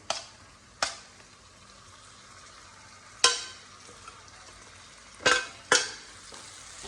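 Spatula stirring fried chicken into onion-tomato masala in a hot pan: five sharp knocks and scrapes of the spatula against the pan, the last two close together near the end, over a steady soft sizzle.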